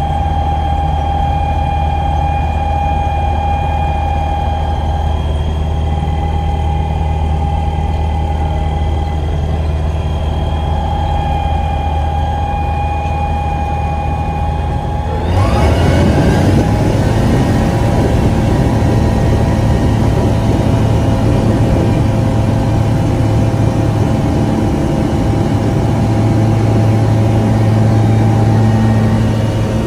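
Aeroprakt A22 light aircraft's engine and propeller heard from inside the cockpit, running steadily at low power. About halfway through, the throttle goes to full with a quick rise in pitch and loudness, and the engine then holds takeoff power through the takeoff roll.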